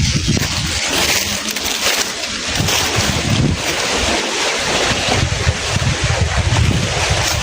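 Wind buffeting the microphone: a constant loud hiss with irregular low rumbling gusts.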